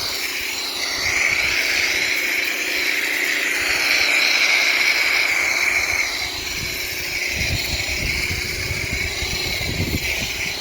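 Harbor Freight Portland pressure washer running steadily, its pump going and the wand spraying hard through a soaking attachment, a constant high hiss over a steady hum.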